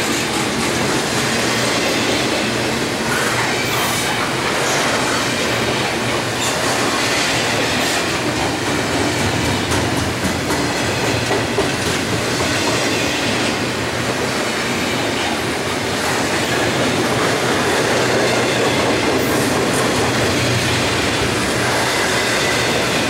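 Double-stack intermodal freight train's container cars rolling past at speed: a steady rumble and clatter of steel wheels on the rails that holds evenly throughout.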